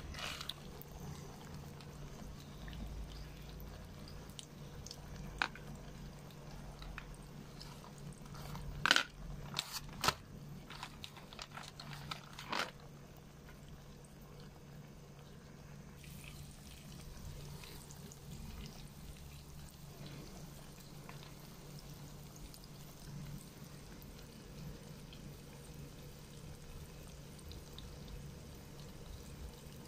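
Kitchen work noises: a handful of sharp knocks and clatters about nine to twelve seconds in, over a steady low hum.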